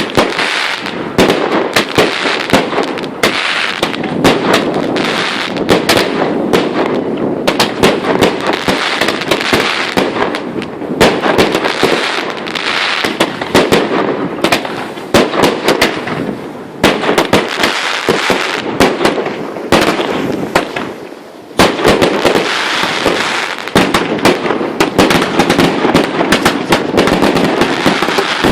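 Fireworks display: a dense, continuous barrage of shell bursts and crackle, many bangs a second, with a brief lull about three-quarters of the way through.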